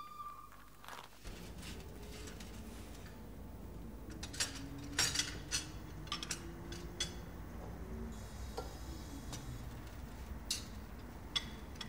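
Coffee cups, saucers and spoons clinking as coffee is served: a scatter of light clinks and knocks, busiest in the middle.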